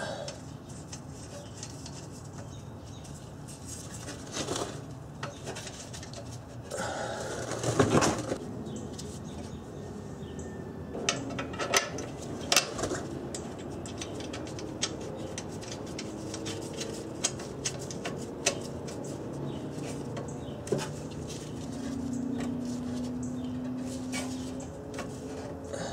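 Light metallic clinks and taps from nuts being threaded onto the spring bolts at an exhaust pipe flange and tools being handled, with a louder clatter about eight seconds in.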